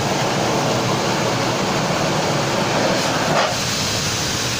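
Pet grooming blower running steadily, blowing air through its hose onto a dog's matted coat to loosen a knot.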